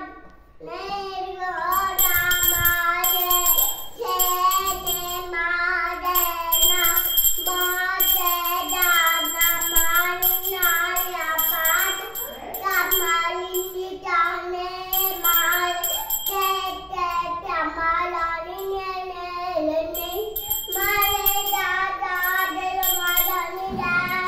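A young child singing a devotional song in a high voice, with a small puja bell ringing alongside it for much of the time, starting about two seconds in.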